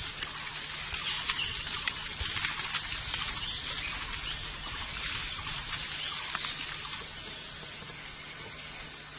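Outdoor forest ambience: a steady high hiss with scattered small ticks. A steady high tone comes in about seven seconds in.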